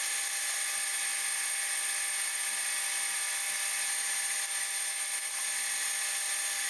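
Manual metal lathe running steadily during parting-off of small nuts from bar stock: an even machining hiss with a whine of several steady high tones and no knocks or changes in pitch.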